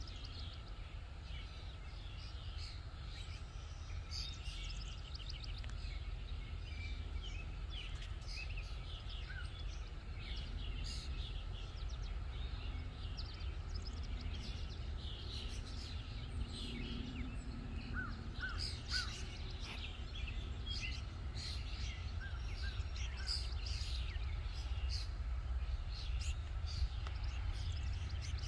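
Birds chirping and calling in many short notes over a steady low background rumble.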